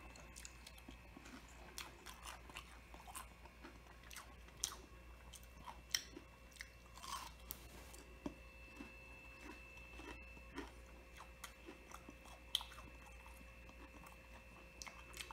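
Faint mouth sounds of chewing crispy breaded calamari rings, with scattered soft crunches and clicks, a couple of them louder. A faint steady high tone runs underneath.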